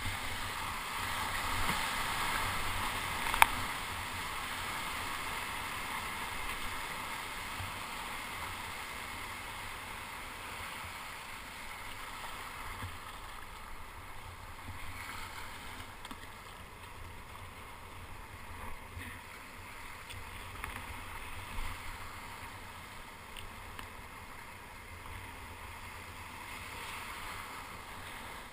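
Broken surf foam hissing and rushing around a kayak, louder for the first few seconds and easing off, with a low rumble underneath. A single sharp knock about three and a half seconds in.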